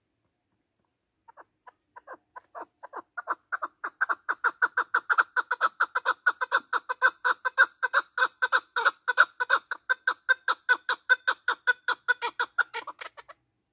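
Chukar partridge calling: a long run of short, rapid chuck notes that starts slow and faint about a second in, speeds up and grows louder to about four or five notes a second, then stops shortly before the end.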